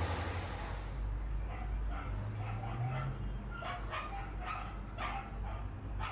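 Dogs barking in a quick run of short barks, roughly two a second, starting about a second in after a steady hiss cuts off, over a low steady hum.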